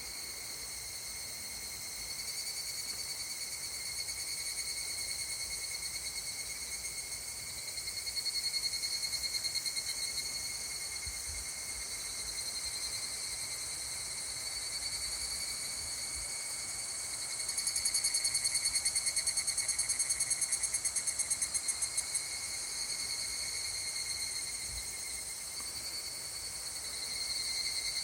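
Chorus of higurashi (evening cicadas, Tanna japonensis) calling in rapidly pulsing phrases that swell and fade, loudest about two-thirds of the way through, over a steady high-pitched ringing.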